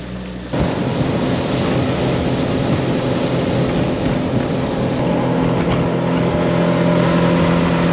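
Motorboat running at speed across open water: a steady engine drone under a loud rush of wind and water. The sound jumps up sharply about half a second in and then holds steady.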